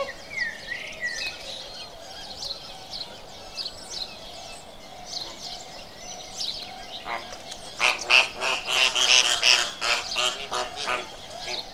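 A flock of flamingos calling with scattered short, goose-like honks and chatter. About eight seconds in, the calls swell into a loud burst of many birds calling at once for about three seconds, then thin out again.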